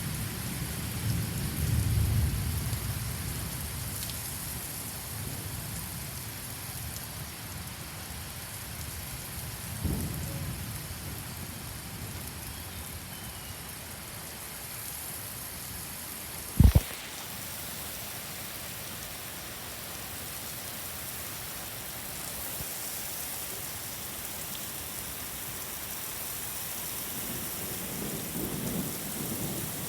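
Thunderstorm: steady rain with low rolls of thunder near the start, again about ten seconds in, and building near the end. About two-thirds of the way through comes a single brief, loud thump.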